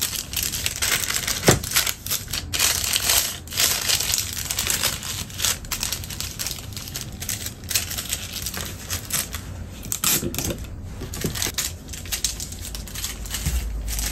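Wrapping material being handled and folded, crinkling in a dense, irregular run of crackles, as the homemade chocolate bars are wrapped by hand.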